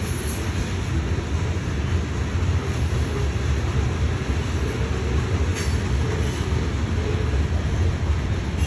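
Loaded grain hopper cars of a freight train rolling past, a steady low rumble of wheels on the rails.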